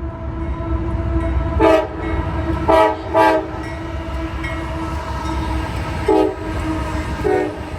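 Train horn sounding a steady held chord, punctuated by five short, louder blasts, over the low rumble of the train.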